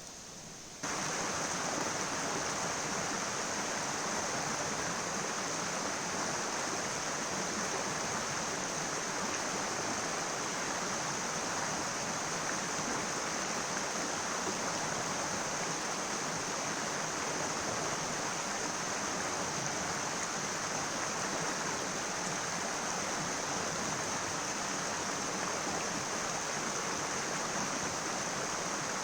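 River water rushing steadily, starting abruptly about a second in.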